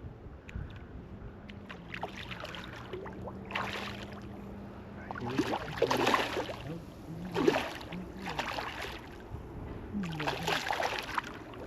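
Water splashing in repeated surges beside a boat as a hooked black drum thrashes at the surface near the end of the fight, over a steady low hum.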